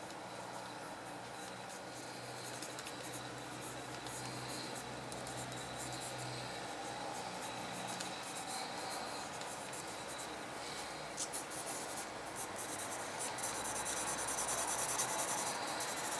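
Red coloured pencil scratching across drawing paper in shading strokes. It gets louder and denser in the last few seconds as it scribbles broad hatching.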